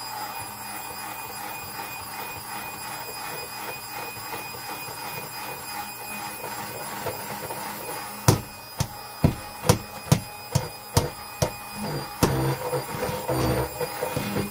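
Stick (immersion) blender motor running steadily with a whine, churning thick hot-process soap batter in a stainless steel pot. From about eight seconds in comes a run of sharp knocks, roughly two a second, as the blender head strikes the pot.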